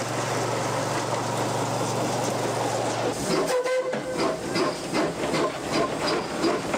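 A motorised rail fire-patrol trolley running steadily along the track with a low hum. About three seconds in it gives way to a steam locomotive heard from its cab: a short whistle note, then rhythmic exhaust chuffs, about three a second.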